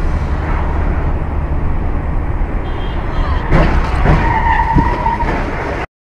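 Car road-and-engine rumble, with a sudden thump about three and a half seconds in, typical of a collision. A high, steady squeal follows for about a second, and the sound cuts off abruptly near the end.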